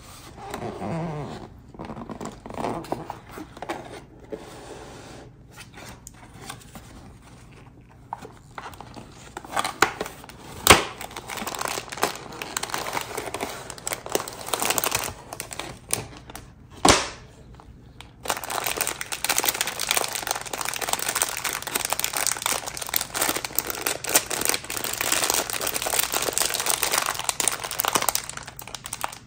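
Takeout food packaging being handled and crinkled: irregular rustling with two sharp snaps, then denser, continuous crinkling through the last third.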